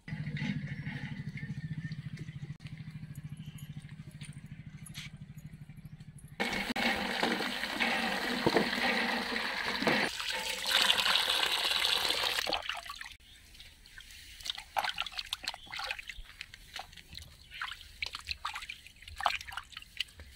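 Water gushing from a hand pump's spout through a wicker basket into a tub, starting suddenly about six seconds in and stopping about halfway through, followed by hands swishing and splashing vegetables in a tub of water. A steady low hum fills the first six seconds.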